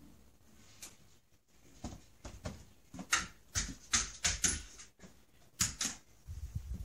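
A cat's claws scratching and its paws thumping against a door in a quick run of strokes as it leaps at it, the loudest cluster in the middle and two more strokes near the end.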